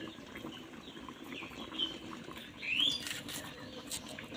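Small birds chirping a few times in short rising chirps, the loudest about three seconds in, over faint clicks and taps of onions being peeled and cut against a blade.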